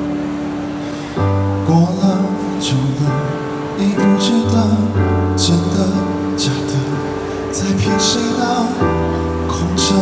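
Male singer singing a Mandarin pop ballad live into a microphone, backed by a band. The vocal line comes in about a second in over a steady bass line and accompaniment.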